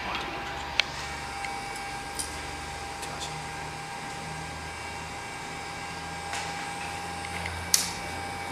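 Steady whir of an infrared rework station's fan running, with a constant high whine over it. Two sharp small clicks come about a second in and near the end, while the chip is being lifted off the phone motherboard.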